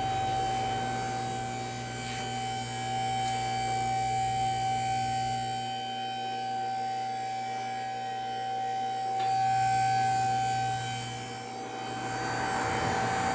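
A steady high-pitched machine whine over a low hum, from running shop equipment. It swells slightly about ten seconds in and again near the end.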